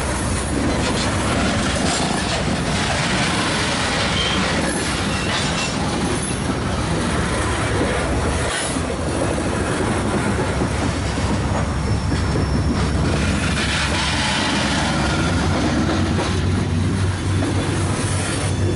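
Freight train of covered hopper cars rolling past, steel wheels running on the rails with clacking and squealing. Its steady, loud rumble carries on after the last car passes.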